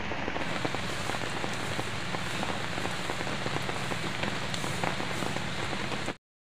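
Steady rain falling, a dense even hiss dotted with many small drop ticks, cutting off abruptly near the end.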